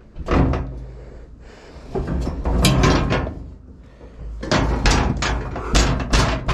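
Several groups of bangs, knocks and thuds from furniture and junk being handled and set down, the loudest near the end.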